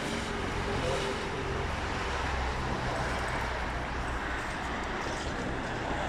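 Street traffic noise with a motor vehicle engine running steadily at idle.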